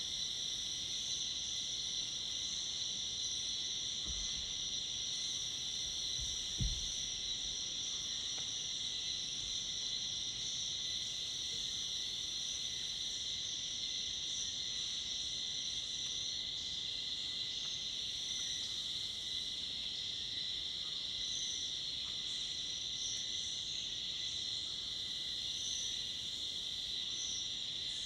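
Dense, steady chorus of cicadas and crickets in tropical forest: a continuous high shrill with a thinner, higher buzz above it and a faint steady whistle-like tone below. Two soft low thumps break in briefly a few seconds in.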